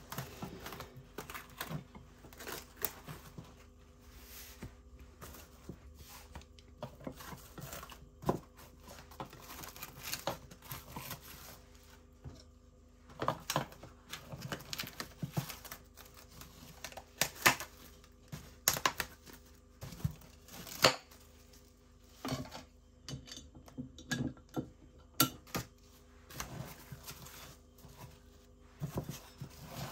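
Irregular handling noises: scattered clicks, taps and rustling, with a few sharper knocks, over a faint steady hum.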